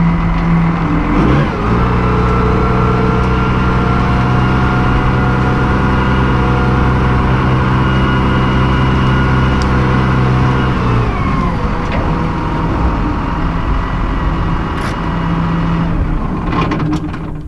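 Case IH MX120 tractor's diesel engine running under way while towing a fertilizer spreader. It speeds up about a second and a half in, holds a steady pitch, then drops back about eleven seconds in. A few sharp knocks near the end.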